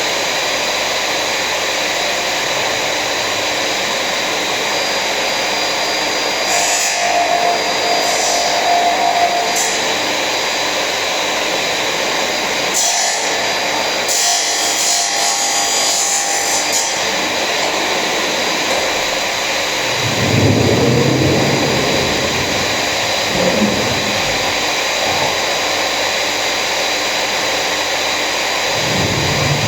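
A power tool running steadily while working wood, with brief higher-pitched flare-ups and a few deeper swells as the load changes.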